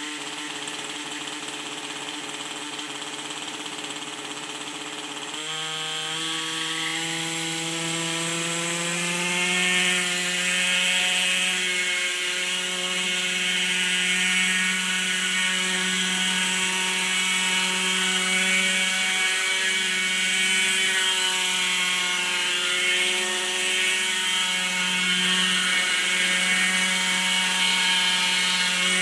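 Hirobo Shuttle RC helicopter's nitro glow engine idling, then about five seconds in the revs jump and climb over several seconds as it spools up to hover. It then runs steadily at high revs with slight wavering, louder than at idle.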